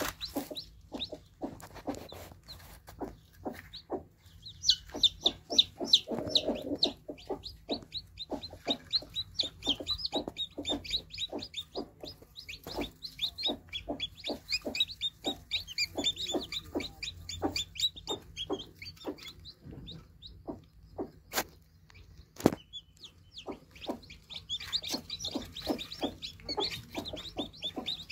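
Newly hatched chicks peeping: dense runs of short, high, falling cheeps, mixed with many short lower clucking notes.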